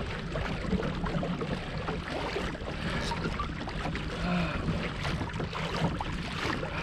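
Water splashing and rushing along the hull of a fishing kayak as a hooked bluefin tuna tows it, with a steady low hum underneath.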